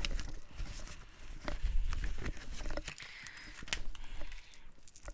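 Hands fiddling with a knotted drawstring pouch: scattered soft taps and knocks with low thumps, and a brief rustle about three seconds in.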